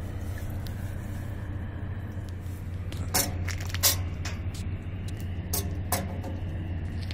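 A round landing net is lowered into sea water from a metal grating walkway, giving a few sharp knocks and splashes, the loudest about four seconds in. A steady low machine hum runs underneath.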